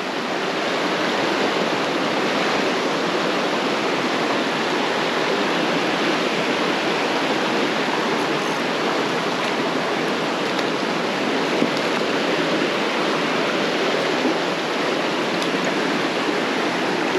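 Steady rush of creek water.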